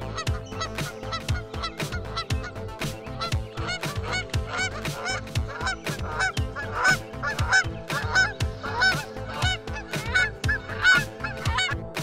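A flock of Canada geese honking, many calls overlapping, growing busier and louder in the second half.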